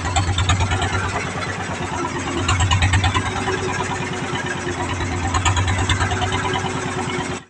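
Small fishing boat's engine running steadily under way, with water rushing and splashing along the hull.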